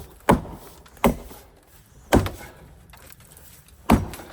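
Four sharp chopping strikes into a tree limb, irregularly spaced about one to two seconds apart.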